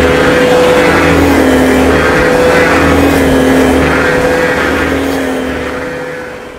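Loud ship engine noise: a steady droning rumble with a low, slightly wavering hum, fading away near the end. It is shipping noise that drowns out a singer.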